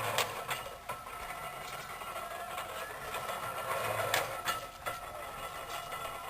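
Antique farm engine running steadily, with a few sharp clicks or knocks at irregular times.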